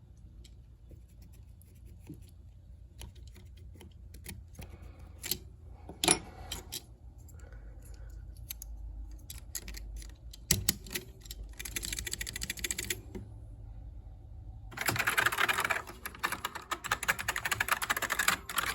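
Keys of a Commodore SX-64 keyboard being pressed: scattered single keystrokes at first, then a short run of rapid typing about twelve seconds in, and a longer, louder run of fast typing from about fifteen seconds. The keys click without scratching, the new membrane's edge having been trimmed clear of the key posts.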